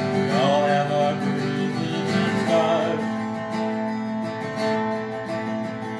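Acoustic guitar strummed steadily as a song's accompaniment, with a man's voice singing briefly in the first half.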